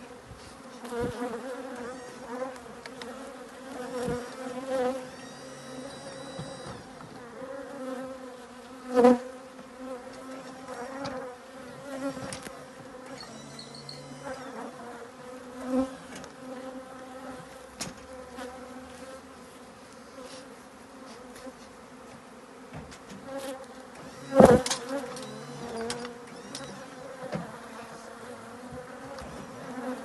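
Honeybees buzzing in numbers around open hives, a steady hum throughout. Sharp knocks about nine seconds in and again about twenty-four seconds in, the loudest sounds, with a few lighter clicks as hive boxes are handled.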